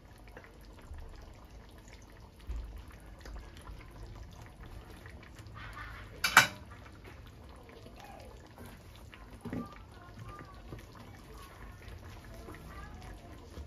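Fish-and-tamarind broth simmering faintly in a wok on a gas burner. A single sharp knock comes about six seconds in, and a softer thud about three seconds later.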